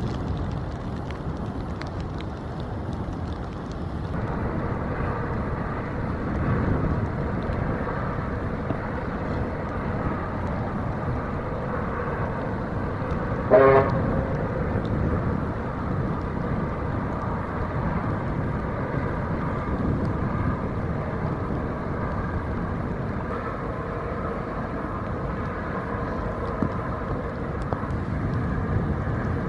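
Steady outdoor rumble with a faint steady hum, broken about halfway through by a single short horn toot.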